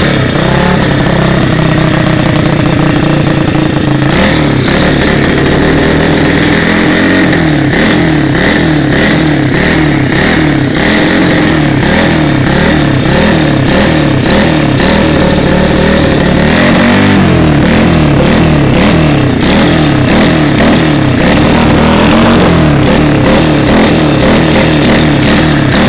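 125 cc pit bike single-cylinder four-stroke engine running on a bench test, loud throughout. It holds fairly steady at first, then revs up and down repeatedly, with the throttle blips coming quicker in the last third.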